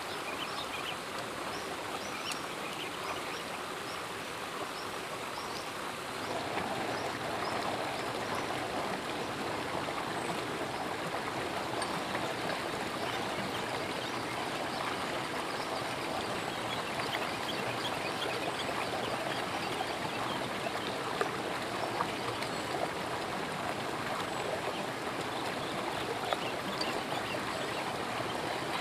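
Steady rush of flowing water, like a stream, getting a little louder about six seconds in.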